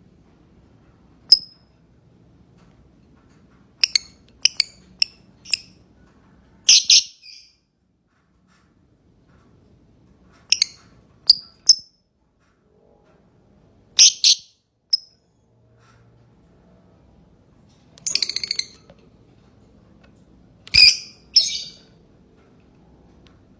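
Lovebird calling: short, sharp high chirps, some single and some in quick runs of three or four, broken by a few louder harsh chattering bursts, the longest about a second, with quiet gaps between.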